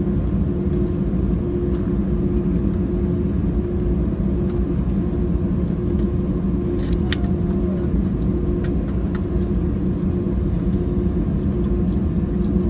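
Cabin noise of an Airbus A320-216 taxiing on its CFM56 engines at low thrust, heard from a seat behind the wing: a steady rumble with a constant low drone tone. A brief click sounds about seven seconds in.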